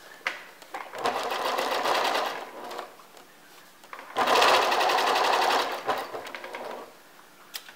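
Electric home sewing machine stitching in two short runs of about a second and a half each, with a pause between them and a few small clicks around them, as it topstitches along a folded fabric edge.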